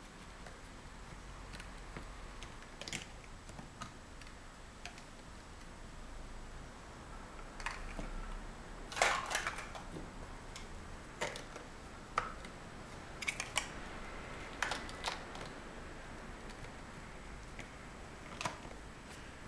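Large plastic Mega Bloks First Builders bricks clicking and knocking as they are handled and pressed together, a scattering of sharp clicks with a busier cluster about nine seconds in.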